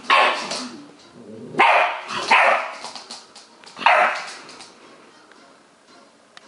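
Staffordshire bull terrier puppy barking: four barks in the first four seconds, the middle two close together.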